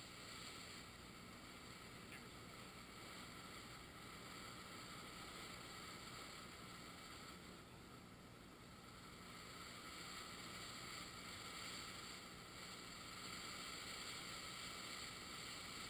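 Faint, steady hiss of a ground fountain firework spraying a column of sparks.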